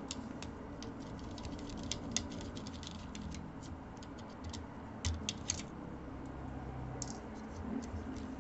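Small screwdriver undoing the tiny screws that hold a netbook's Wi-Fi card, giving many light, irregular clicks and ticks of metal against metal and plastic. The clicks come thickest in the first few seconds, with a short cluster about five seconds in.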